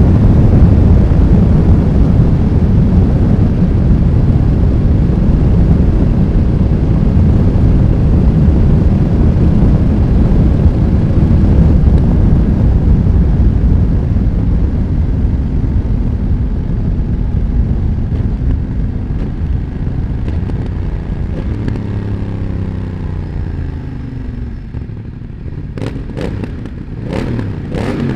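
2020 BMW F900R's parallel-twin engine through a Mivv X1-M exhaust, ridden at speed under heavy wind rush, then its note falls away as the bike slows. Near the end, a few sharp exhaust pops on the overrun.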